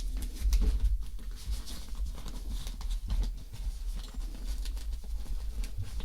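Handling noise as the parts of a bike pump kit are packed into a fabric carry bag: irregular small clicks, taps and rustles of the pieces and the bag.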